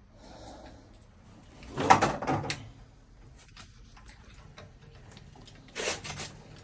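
Clunks and rattles from a water heater being moved on a lift dolly: a loud clatter of several knocks about two seconds in and a shorter one near the end, with quiet handling noise between.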